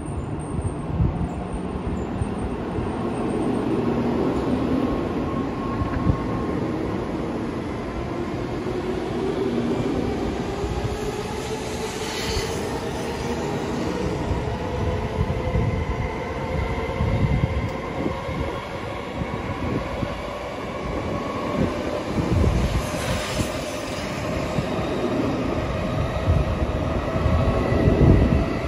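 A Tokaido Shinkansen Nozomi train moving past the platform. Its electric traction motors give a whine that rises steadily in pitch as the train picks up speed, over a constant rumble of wheels on rail.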